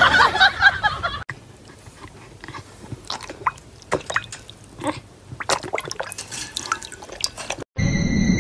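A dog lapping water from a stainless steel bowl: irregular wet splashes and clicks. A louder, busier sound fills the first second, and music with steady high tones starts near the end.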